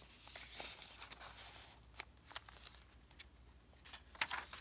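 Soft rustling of paper pages and card tags in a handmade journal being handled, with a few light clicks and taps.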